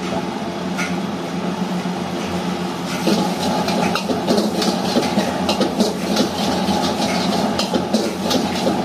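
Metal ladle and spatula scraping and clanking against a wok as fried rice is stirred and tossed, the clatter growing busy about three seconds in. A steady hum runs underneath.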